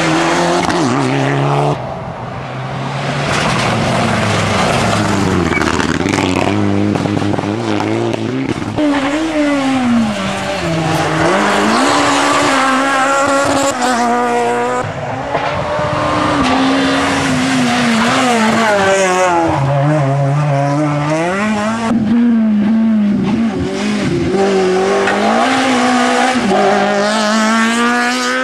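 Rally cars passing one after another at speed on a tarmac stage, their engines revving hard, pitch climbing and dropping repeatedly as they accelerate, lift off and change gear.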